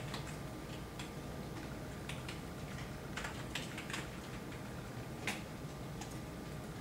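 Computer keyboard keys clicking in scattered, irregular keystrokes as code is typed, over a steady low hum.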